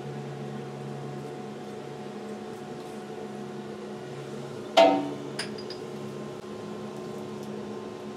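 Tormach 1100MX CNC mill running with a steady hum. About five seconds in there is one sharp metallic clink with a brief ring, followed by a fainter tick.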